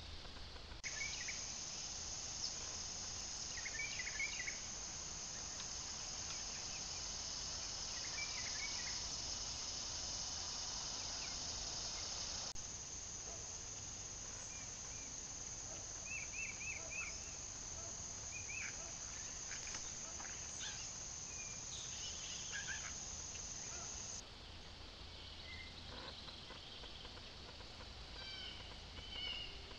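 Outdoor morning ambience: a steady high-pitched insect drone that starts about a second in and cuts off abruptly near the end, with scattered short bird chirps over it.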